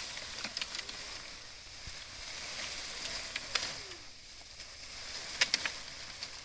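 Dry bamboo branches and leaves rustling and scraping as they are pushed in among upright bamboo poles, with scattered sharp twig cracks, the loudest a couple of snaps about five and a half seconds in.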